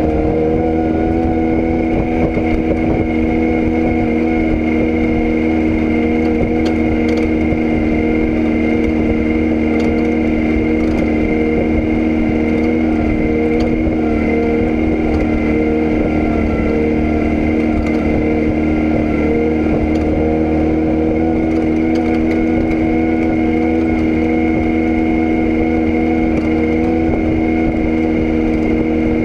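An engine or motor running steadily at one constant speed, a droning hum of several tones over a low rumble, with no change in speed.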